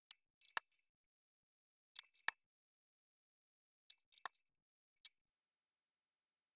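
Small, sharp clicks and taps in four short clusters, then nothing, typical of handling a small desoldered push-button switch and its parts on the workbench.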